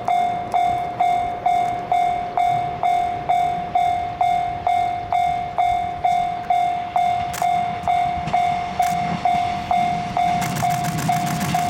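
Japanese level-crossing warning bell ringing at a steady rhythm of about two strikes a second. About ten seconds in, the rumble of an approaching JR West 115 series electric train rises beneath it.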